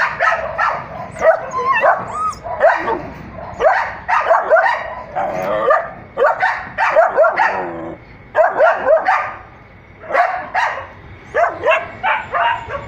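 Dogs barking and yipping in quick runs of short, overlapping calls, with brief lulls about eight and ten seconds in.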